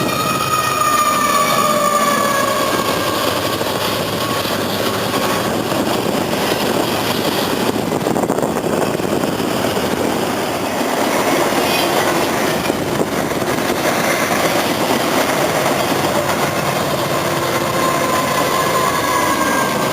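A train passing on the rails with a steady rumble and rattle of railcars. In the first few seconds a high tone slides down in pitch, and a fainter tone returns near the end.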